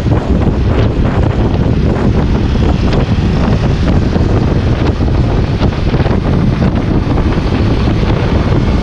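Loud, steady wind buffeting on the microphone while riding along at speed, mixed with the running of small motorcycles.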